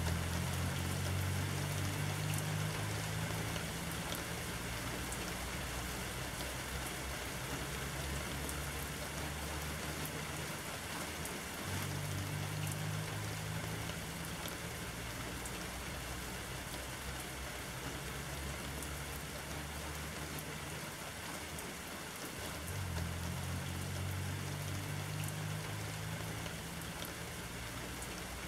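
Steady rain falling, a continuous hiss with scattered individual drops ticking. Underneath runs a low hum that swells and eases, repeating about every eleven seconds.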